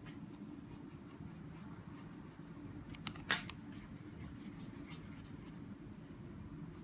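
Light scraping and rubbing as excess solder paste is cleaned off a BGA stencil, with faint scattered ticks and two sharper clicks about three seconds in, over a low steady hum.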